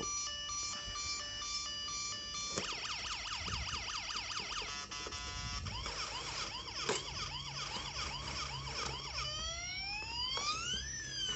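Toy police car's electronic siren sound effect cycling through patterns: a repeating steady beep at first, then quick up-and-down yelps from about two and a half seconds in, then slow rising and falling wails near the end. A few short knocks of cardboard being handled.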